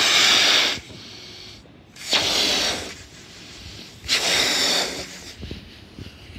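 Three hard breaths blown into a rubber party balloon, each a short rush of air lasting under a second, about two seconds apart. The balloon is thought to be leaking.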